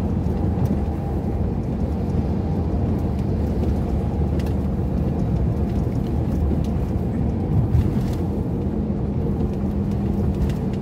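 Steady low rumble of a car's engine and road noise, heard inside the cabin.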